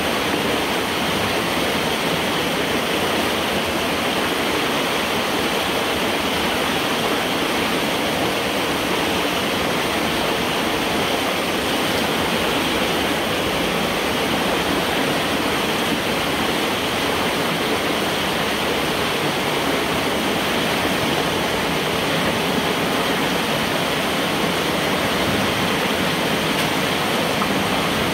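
Floodwater rushing steadily through a corrugated metal culvert pipe, splashing around a person crouched in it. This is backed-up water draining through now that the beaver dam blocking the pipe is being pulled out.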